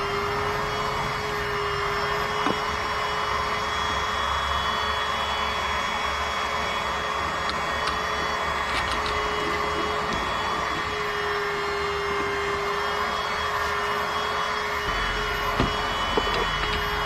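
Steady machine whirr with a constant hum-like tone running through it, and a few light clicks near the end.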